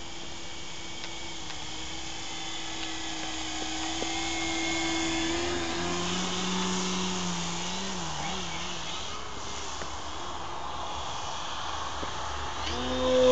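Motor and propeller of an RC aerobatic airplane in flight, a steady drone whose pitch shifts up and down as the throttle and distance change. It grows louder a few seconds in and then eases off.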